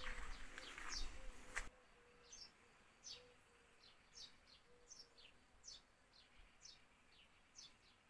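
A small bird chirping faintly outdoors: short, high, falling notes repeated about once or twice a second. Rustling outdoor noise runs under it for the first couple of seconds, then cuts off suddenly.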